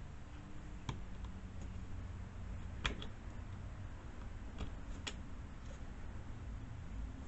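Sharp clicks and taps of small parts and tools being handled while a replacement carburetor and its fuel lines are fitted to a chainsaw. There are about five separate clicks, the loudest about three seconds in, over a low steady hum.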